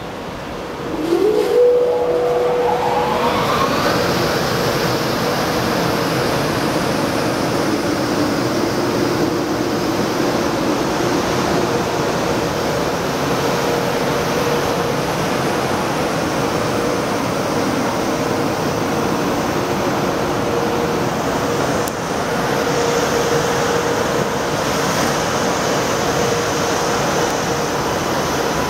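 EH200 electric freight locomotive moving off under power: a rising electric whine of several tones climbs over the first few seconds as it accelerates. It then settles into a steady running noise with a held hum as the locomotive passes close by.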